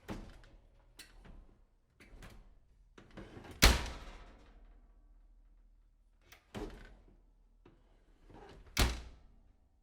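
A series of door sounds: latch clicks and doors being shut, each ending in a thud. The loudest is a hard slam about four seconds in with a long echoing fade, and another door swings and bangs shut near the end.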